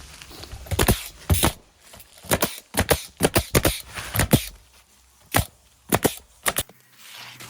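Pneumatic roofing nailer driving roofing nails through bituminous shingles into wooden decking: a quick, irregular run of sharp shots, some in fast pairs, that stops about six and a half seconds in.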